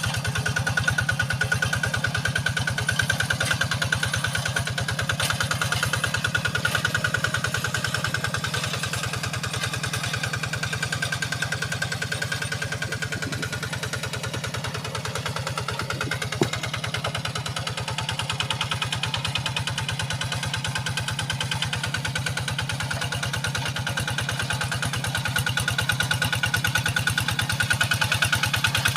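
Kubota RD85 single-cylinder diesel engine on a hand tractor running steadily while plowing a wet rice paddy, its firing a fast even chug. It eases slightly in the middle and picks up again near the end, with one short sharp knock about halfway.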